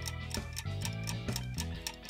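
Clock-ticking sound effect: quick, regular ticks over soft background music with steady low notes.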